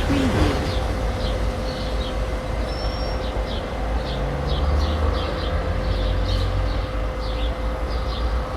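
City residential street ambience: small birds chirping again and again, over a low rumble of distant traffic that swells around the middle, with a steady hum underneath.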